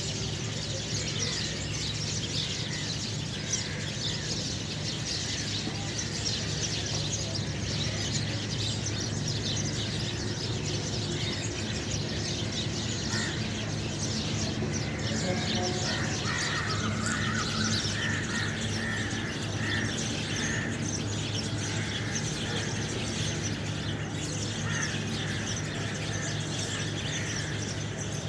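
Many small birds chirping continuously, with a steady low hum underneath.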